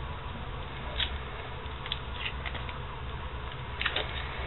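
Blue painter's tape being peeled off a sledgehammer handle: a few short crackling rips about a second in, around two seconds, and near the end, over a steady low hum.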